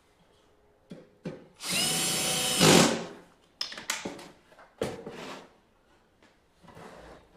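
A small power drill-driver runs steadily for about a second, driving a screw, and stops. Sharp knocks and clicks come just before it and in a cluster after it.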